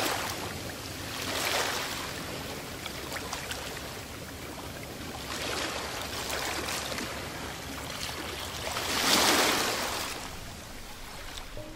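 Ambient soundscape music of rushing noise that swells and fades like waves, several times over, the loudest swell near the end.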